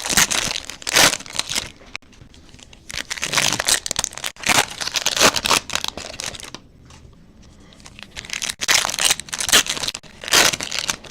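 Foil wrappers of Bowman Chrome baseball card packs crinkling and tearing as the packs are opened, in three bursts of crackling with quieter gaps between.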